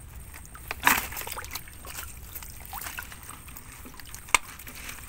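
Water trickling and sloshing as a net holding caught tilapia is handled and drawn out of the water, with two sharp knocks from the handling, one about a second in and one near the end.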